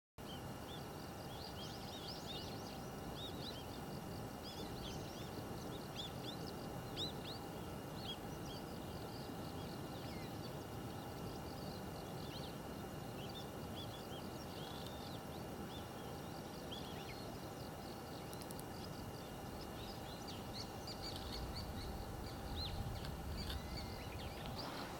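Wild songbirds chirping and calling in many short high notes over a steady outdoor background hiss, with a few thin steady tones under them.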